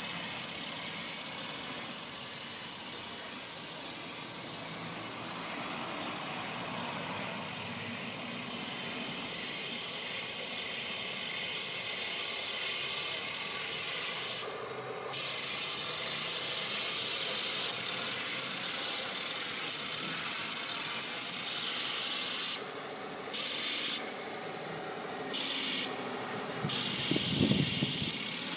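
Full-metal RC Tiger tank model driving on grass: a steady whirring hiss from its electric drive motors and gearboxes, cutting out briefly a few times. A louder, rougher burst comes about a second before the end.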